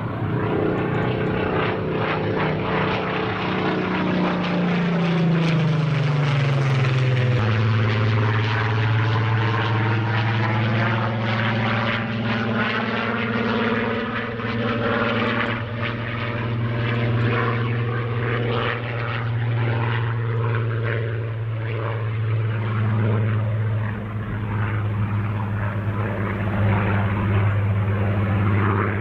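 Supermarine Spitfire's Rolls-Royce V12 piston engine droning as the aircraft flies past, its pitch falling over the first seven seconds or so and then holding steady while it turns and rolls overhead.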